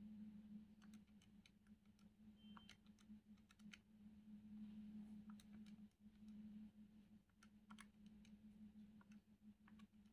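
Faint, irregular clicks of buttons being pressed on a Casio fx-82ES Plus scientific calculator, over a low steady hum.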